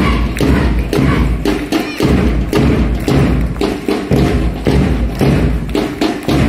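Drum beating a steady marching rhythm of repeated thumps for a march past.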